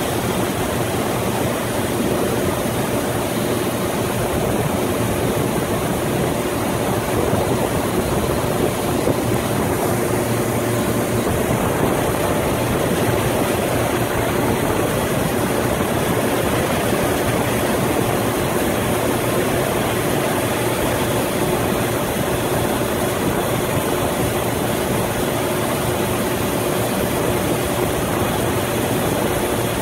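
Heavy diesel machinery of a Coast Guard buoy tender running steadily while its deck crane works a load, a constant hum carrying a few steady tones, with no knocks or clanks.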